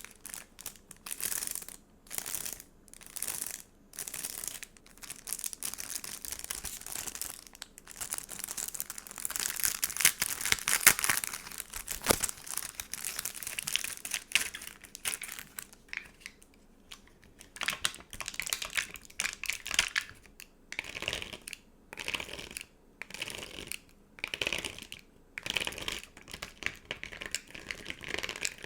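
Stickers and a sticker book being handled, crinkling and rustling. The rustles come in short separate bursts, with a longer unbroken stretch of crinkling in the middle.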